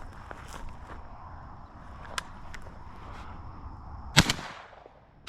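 Two shotgun shots at doves about a second apart, the first about four seconds in and the second right at the end, each sharp crack trailing off briefly.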